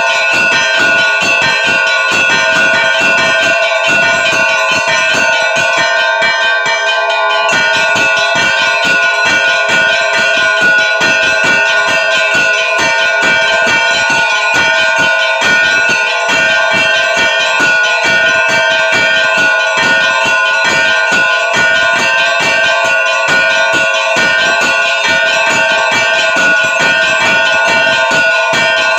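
Russian Orthodox church bells rung together in a rapid, continuous peal, several bells sounding at once with their tones ringing on: the ringing that calls the faithful to the All-Night Vigil. The low strikes drop out briefly about six seconds in, then resume.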